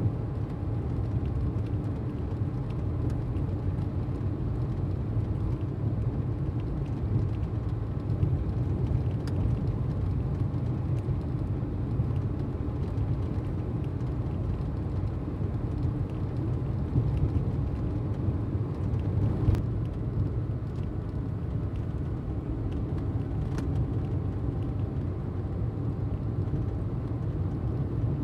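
Steady road and engine rumble heard from inside a car cruising at highway speed, with a few faint clicks.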